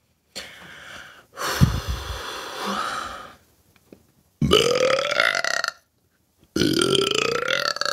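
A person burping loudly several times: one long, low burp, then two shorter burps whose pitch rises.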